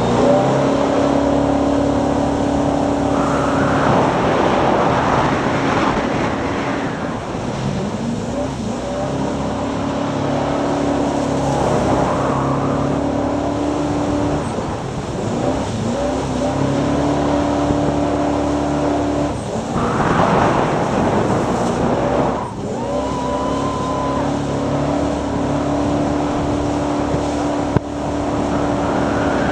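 Jet boat engine running hard at speed, its pitch holding steady, then dropping and climbing again several times as the boat slows and powers through turns, with bursts of rushing water and spray.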